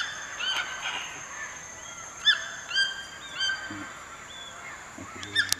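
Scarlet macaws calling: a string of short, harsh squawks, unevenly spaced, over a steady high-pitched background drone, with a sharp click near the end.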